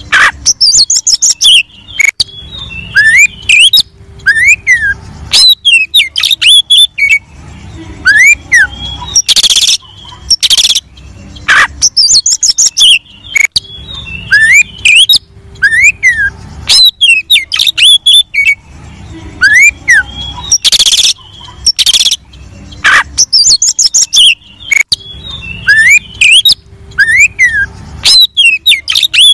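Oriental magpie-robin (kacer) in full song: loud, varied whistled phrases of rising-and-falling notes and high trills, broken by a few loud harsh notes, the same run of phrases repeating about every eleven seconds. It is a recording of a male singing hard, played as a lure to get other magpie-robins to answer and sing.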